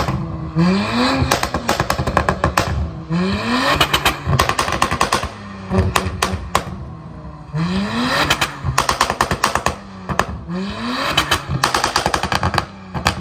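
Audi S5 Sportback revved in repeated blips, about five times: each time the engine pitch climbs, then a rapid string of exhaust pops and crackles follows as the revs fall.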